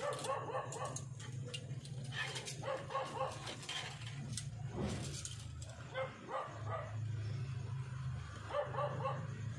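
Short animal calls in the background that recur several times, over a steady low hum, with light clicks of copper coil wire being handled.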